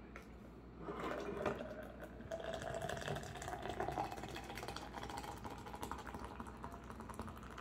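Pepsi Nitro cola poured from a can into a glass packed with ice: liquid splashing over the ice with a dense, rapid crackle. It gets louder about a second in and runs on steadily as the glass fills.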